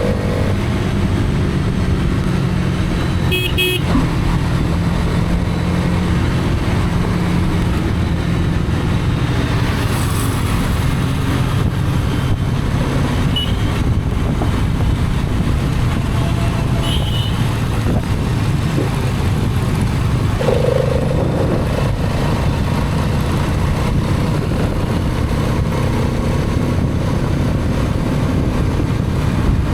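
Hero Karizma XMR's single-cylinder engine running steadily at riding speed, with wind and road noise. Short horn toots sound about three and a half seconds in and again around seventeen seconds.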